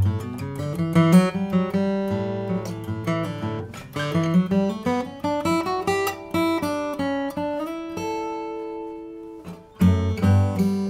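2011 Gibson J-60 steel-string acoustic guitar played solo: picked notes and chords, with a rising run in the middle and a chord left ringing and fading before a louder chord is struck near the end.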